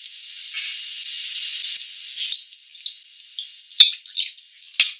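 Cooking wine poured from a bottle into a glass bowl of sauce, a hissing trickle that swells over the first two seconds and breaks up. About four seconds in, a spoon stirring the sauce clicks sharply against the glass bowl, several times.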